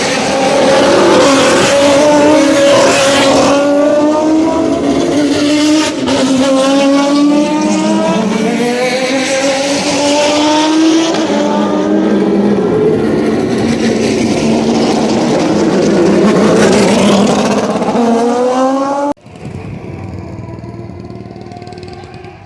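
Turismo Carretera race car engines at full throttle, the pitch climbing and dropping back at each gear change, again and again. The sound cuts off abruptly near the end, leaving a much quieter background.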